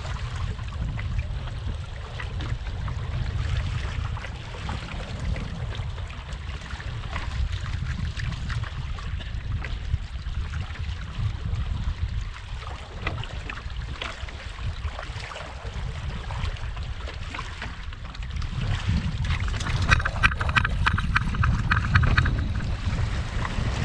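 Wind rumbling on the microphone, with water splashing and trickling against a small sailboat's hull. The splashing gets louder and busier near the end.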